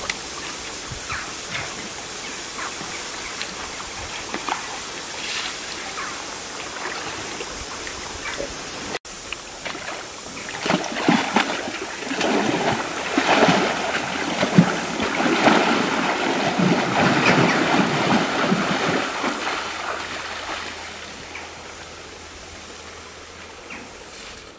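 Water splashing and spraying as a greater one-horned rhinoceros is given a cold-water shower. It is loudest in the middle and fades to a softer hiss near the end, after a first stretch of gentle water movement around the rhino as it lies in its pool.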